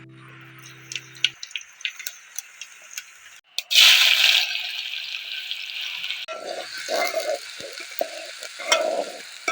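Food frying in hot oil in a pan, sizzling and being stirred, with light clinks early on and a sudden loud burst of sizzling about three and a half seconds in, then steady sizzling with repeated stirring scrapes.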